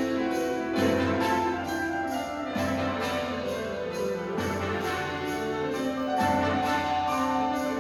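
Symphony orchestra playing with piano, strings and brass sustaining chords over a low note that lands about every two seconds.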